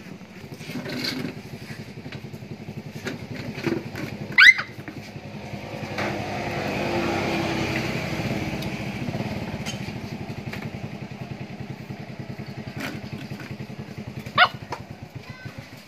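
A small engine running with a steady pulsing note, swelling louder for a few seconds in the middle. Two short, sharp, rising squeaks cut through it, the first about four and a half seconds in and the second near the end.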